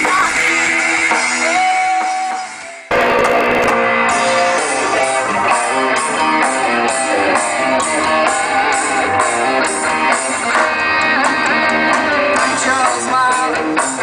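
Live rock band playing electric guitars, bass and drum kit with a steady beat. About three seconds in the music breaks off abruptly and a different, denser passage starts.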